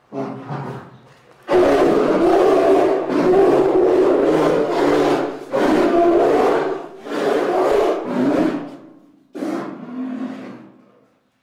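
Bear-like film creature roaring: a short call, then a run of long, rough, loud roars, the last ones weaker and trailing off.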